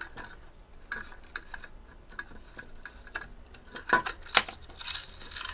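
Small clicks and taps of hands and tools on the plastic body of a toy tank being taken apart, with a few sharper knocks about four seconds in.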